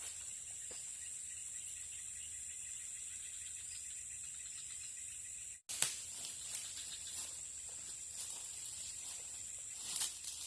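Steady high-pitched insect drone over faint outdoor background. It cuts out for an instant a little past halfway and resumes with a few faint clicks.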